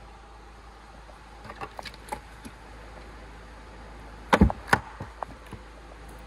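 Car boot floor board being handled: a few light clicks, then two loud knocks close together as the carpeted board is set back down.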